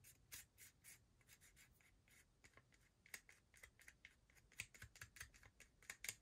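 Faint handling of a folded, glued cardstock strip: scattered small taps, scratches and rubs of card being pinched and pressed between fingers.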